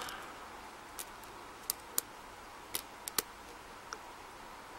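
A lock pick working the pin stacks of a solid brass Yale 851 pin-tumbler padlock under tension: about seven small, sharp metallic clicks at irregular intervals as the pins are lifted.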